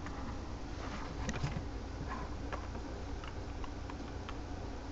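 Faint, scattered clicks and handling noise of plastic B-Daman toy parts being fitted onto the figure by hand, over a steady low hum.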